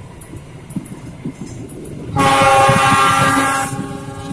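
Locomotive CC 206 air horn sounds one long blast of about a second and a half, about two seconds in. Under it is the rumble and clatter of passenger coach wheels running past on the rails.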